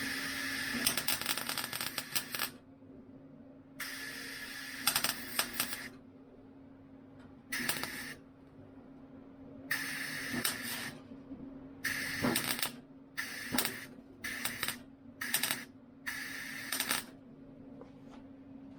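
MIG welder laying short stitch and tack welds in car body sheet metal: about nine bursts of crackling arc, each from half a second to two and a half seconds long, with short pauses between them and a steady hum underneath.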